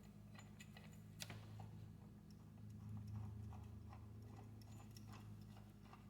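Faint, regular light clicking, about three clicks a second, from hand work on the brake caliper's mounting bolts, over a steady low hum.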